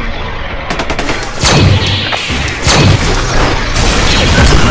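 Added battle sound effects of a tank cannon firing. A quick run of rapid gunshots comes first, then two loud shots with a falling pitch, then an explosion near the end.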